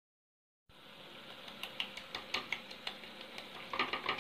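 A utensil scraping and tapping in a non-stick frying pan while stirring mackerel in tomato sauce, in irregular clicks over a faint steady hiss. It starts after a short gap of silence.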